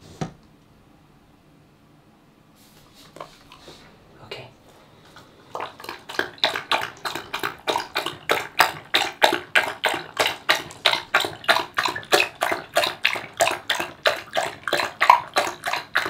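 Corgi lapping up a thin liquid from a bowl held in a hand: quick, even, wet laps, about three a second, that start about five seconds in. A single sharp click comes just at the start.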